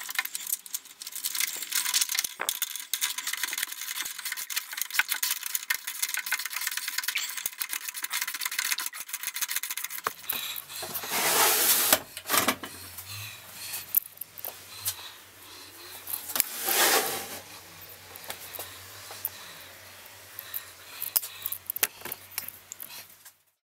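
Rapid metallic clicking and rubbing as the lathe's pivot bolt is worked from under the bench. Then the lathe's base scrapes across the plywood top as it is swivelled on its pivot, with two louder scrapes about eleven and seventeen seconds in.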